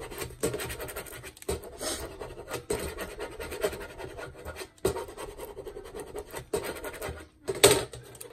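Vinyl decal sheet and its transfer tape and backing paper being handled and rubbed by hand on a metal baking tray: irregular scratching and rustling, with a few sharper clicks, the loudest near the end.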